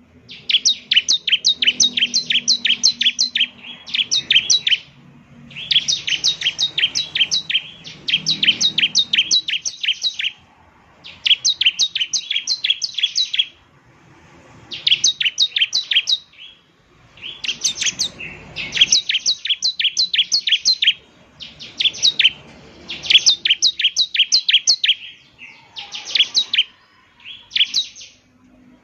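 Bar-winged prinia (ciblek) singing: a dozen or so phrases of fast, sharp, high chirping notes, each phrase up to a couple of seconds long, with short pauses between.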